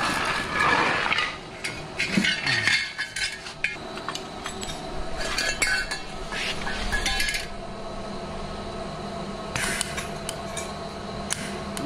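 Steel parts of a motorcycle frame clinking and clanking as they are handled, in several short clusters. About ten seconds in comes a brief crackling burst from a MIG welding gun striking a tack weld on the frame.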